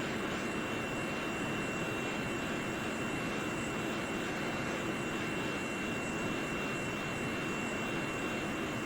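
Hot air rework station blowing through a wide nozzle: a steady rush of air with a thin, steady high tone over it, as the board around a laptop GPU is preheated for a BGA reflow.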